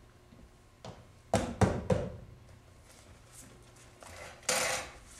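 Three sharp knocks on wood, like a knock at a door, about a third of a second apart, with a fainter tap just before. Near the end, a short scrape as a chair is moved across the stage floor.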